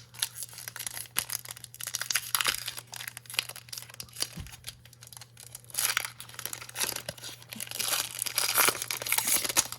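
Foil Pokémon booster pack wrapper being torn open and crinkled in several bursts, the longest and loudest near the end.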